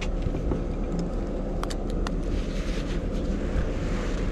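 Steady low rumble of wind on the microphone, with a few light clicks about one and a half seconds in as a backpack is handled at an open car door.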